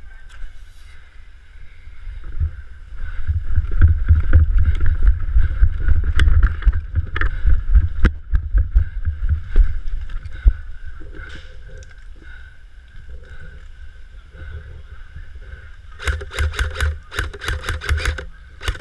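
Heavy low rumble of movement and wind on a body-worn action camera's microphone, with scattered knocks, then a quick run of sharp clicks, about four or five a second, near the end.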